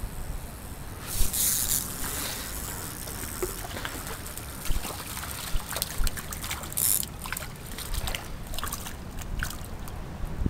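Shallow river water trickling and sloshing, with a few short splashes as a hooked trout is drawn in at the surface.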